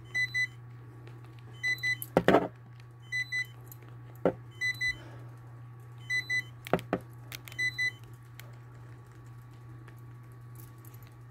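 An electronic alarm beeping in pairs of short high beeps, a pair about every second and a half, stopping about eight seconds in. A few sharp knocks fall among the beeps, over a steady low hum.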